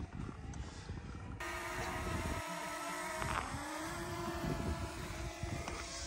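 A motor running steadily, its pitch rising slightly about three seconds in, over a low rumbling noise.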